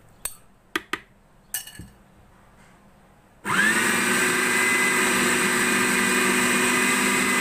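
A few light clicks and knocks. About halfway through, an electric food chopper starts: its motor spins up in a quick rising whine, then runs steadily and loudly as it grinds spiced beef mince into kofta paste.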